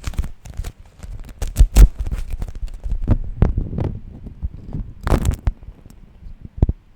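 Beeswax food wrap being handled close up: crinkled, pressed and peeled apart as it sticks to itself, giving irregular sticky crackles and soft thumps. The loudest crackles come a little under two seconds in and again about five seconds in.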